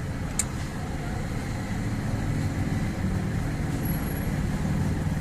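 A vehicle engine running steadily with a low rumble, and one sharp click about half a second in.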